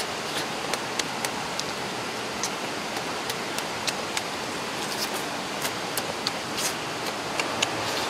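Steady rush of falling water, with sharp, irregular clicks of someone chewing and lip-smacking while eating fish.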